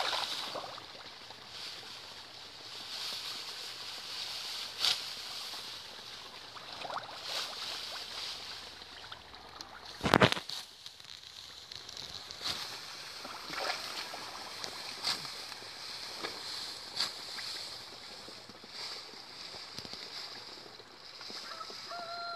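Ripe rice stalks rustling and swishing as they are gathered and cut by hand during harvest, with many small snaps and crackles over a steady high hiss. One louder knock comes about ten seconds in.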